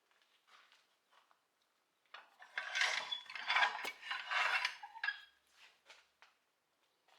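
Metal clattering and scraping, as of tools or metal parts being handled, bunched from about two to five seconds in, with a few faint clicks before and after.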